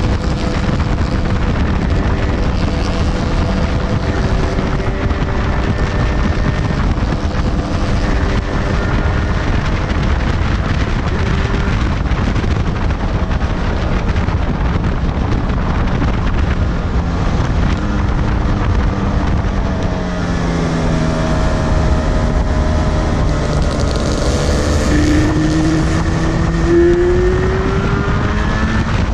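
Heavy wind buffeting on the microphone over a Yamaha two-stroke twin motorcycle engine under way at road speed. The engine note dips about two-thirds of the way through, then climbs as the bike revs up near the end.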